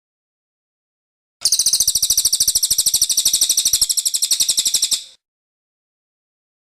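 Cililin songbird singing one rapid, high trill of about a dozen notes a second, starting about a second and a half in and lasting nearly four seconds.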